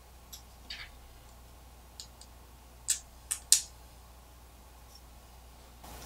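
Small carbon-fibre quad frame parts and screws clicking and tapping together as they are handled and fitted by hand: a few scattered light clicks, with the sharpest ones about three to three and a half seconds in.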